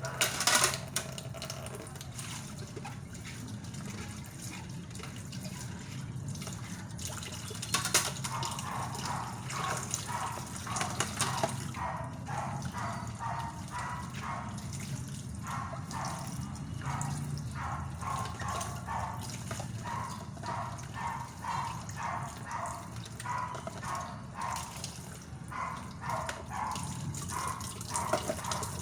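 Water running from a kitchen tap into a sink during dishwashing, with a sharp splash or clatter at the start. From about eight seconds in comes a long run of short, quickly repeated sounds, two or three a second.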